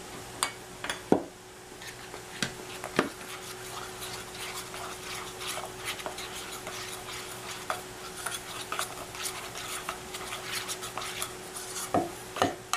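A spoon stirring hushpuppy batter of cornmeal mix, flour, onion, egg and milk in a metal mixing bowl: many small clicks and scrapes of the spoon on the metal, with a few louder knocks near the start and near the end.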